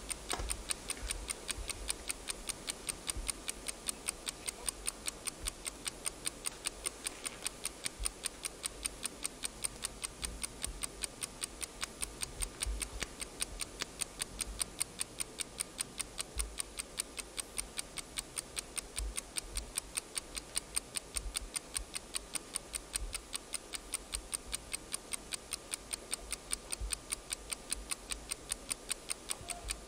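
Alarm clock ticking steadily, a few even ticks a second.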